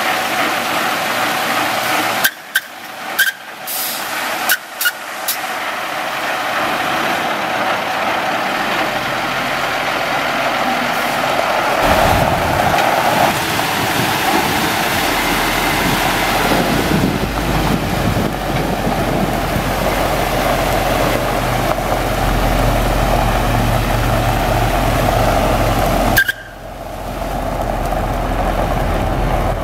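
Water hissing from the spray heads of a 2000 International 4900 water truck onto gravel, with the truck's diesel engine running underneath and growing louder in the second half. The sound breaks off suddenly a few times, near the start and again near the end.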